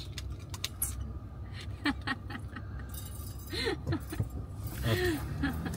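The thin metal prongs of a wire head massager clinking and jingling as it is handled, a scatter of light clicks, over the low running noise of a car cabin.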